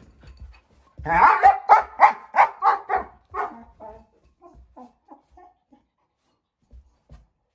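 German shepherd puppy barking in a quick run of about eight loud barks, trailing off into softer, shorter yips.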